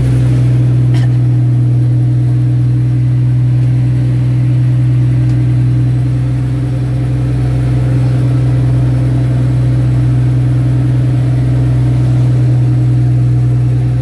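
A fishing boat's inboard diesel engine running steadily under way, a constant low drone.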